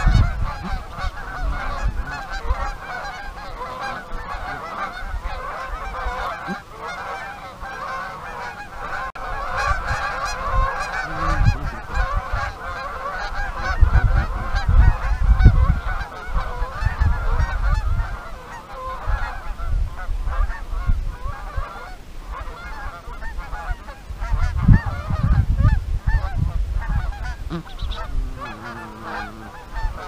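A flock of Canada geese honking, many overlapping calls at once without a break, with a low rumble surging up now and then.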